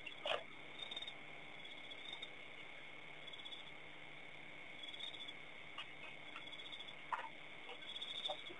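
Evening insect chorus, likely crickets: a steady high trill with repeated pulsing bursts above it. A few short sharp chirps or clicks stand out, one about a third of a second in and a couple around seven seconds.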